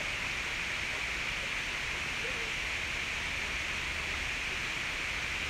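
Steady outdoor background hiss with no distinct events.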